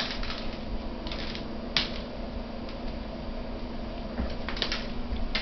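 A noisy toy mouse on a string is being jerked across a hardwood floor, rattling and skittering in a handful of short clattering bursts as a cat chases it.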